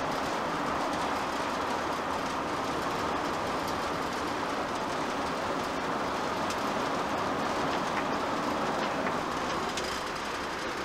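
Steady road noise inside a motorhome's cabin at highway speed: an even rush of tyres and engine with no change in level.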